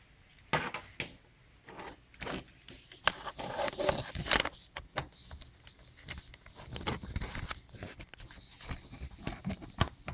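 Camera and tripod handling noise: irregular clicks, knocks, scrapes and rustles as the camera is moved about and set up on a tripod.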